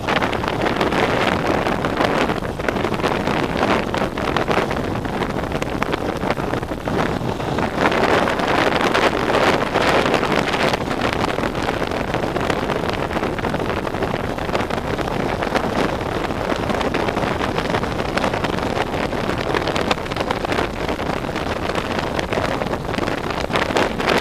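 Wind rushing over the microphone of a helmet-mounted action camera that is outside its case, while riding along a road. It is a steady rush that swells and eases.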